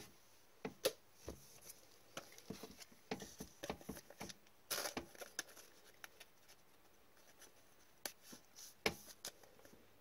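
Faint, scattered clicks and brief rustles of hockey cards, opened foil pack wrappers and a clear plastic card sleeve being handled, with a lull partway through.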